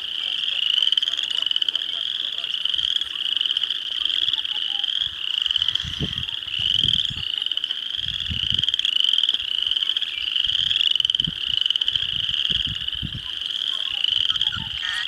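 A dense chorus of frogs calling in a marsh: many overlapping short, rising, pulsed trills repeat without a break. Low thumps come and go underneath from about six seconds in.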